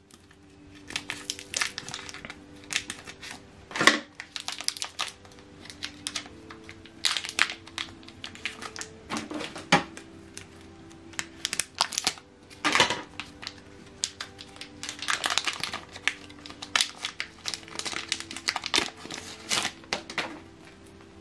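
Clear plastic wrapping on a new inkjet printer cartridge crinkling and crackling irregularly as it is handled and torn open, with a few louder crackles spread through.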